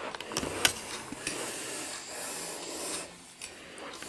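A pencil scratching across a sheet of paper on a wooden table, drawing strokes. There are a couple of light taps in the first second and a short pause about three seconds in.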